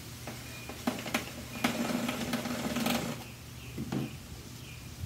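Battery screwdriver's small motor running in short bursts and then for about a second and a half as it backs screws out of an air fryer's plastic housing, with a few clicks. A knock near the end as the screwdriver is set down on the table.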